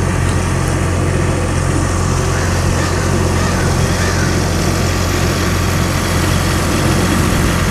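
A car's engine running with a steady low hum, under an even wash of noise.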